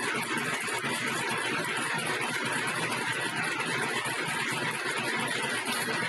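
Aluminium foil duct forming machine running steadily, a constant mechanical noise as foil is wound into spiral flexible duct.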